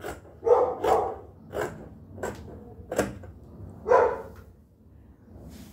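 A dog barking, about six short barks spaced unevenly over the first four seconds.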